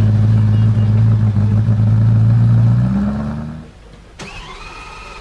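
Ferrari F40's twin-turbo V8 idling loud and steady, its pitch lifting slightly near the end before it cuts off. Then a click and a faint rising whine come from a Lamborghini Aventador's V12 as it begins to crank.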